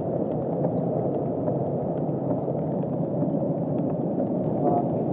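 Steady rushing noise inside a car driving along a flooded road: tyres and water spray against the body, with faint scattered ticks.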